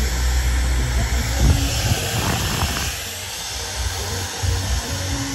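Handheld hair dryer blowing a steady hiss of air over freshly airbrushed crankbait lures, drying the paint. Background music plays underneath.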